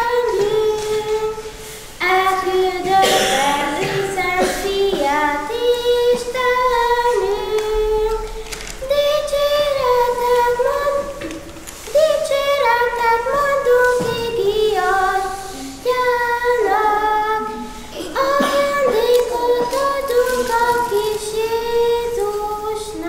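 Children singing a Hungarian Christmas carol in phrases, with short breaks between lines.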